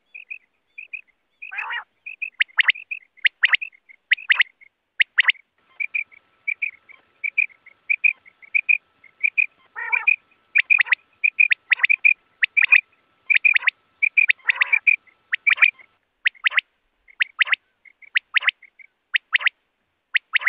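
Quail calling over and over: sharp whistled notes about once a second, with quicker, softer short chirps between them.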